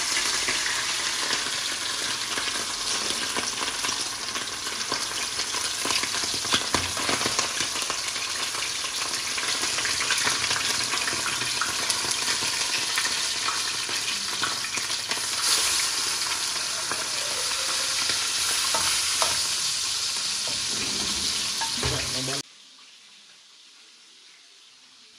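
Whole fish frying in hot oil in a wok: a steady loud sizzle with scattered light clicks, cutting off abruptly near the end.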